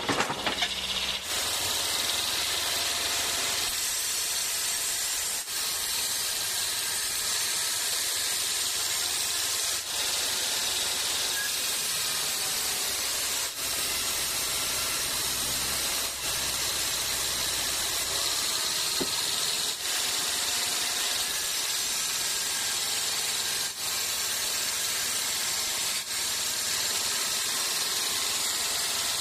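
Sawmill bandsaw cutting through a teak log: a steady, even hiss of the blade in the wood over a low machine hum, with faint ticks every few seconds.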